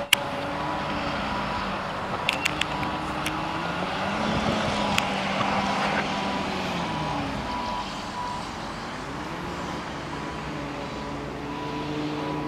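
Heavy earth-moving machinery, an excavator and a front loader, working. Their engines rise and fall in pitch as they labour, with a reversing alarm beeping on and off and a few sharp metal clanks about two to three seconds in and again at five seconds.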